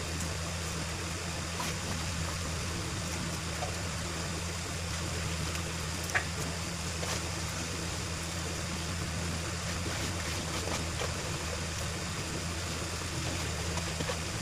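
Washed rice being scraped by hand from a plastic bowl into a pot of milk: faint wet scrapes, small splashes and light ticks, one sharper click about six seconds in. A steady low hum runs underneath.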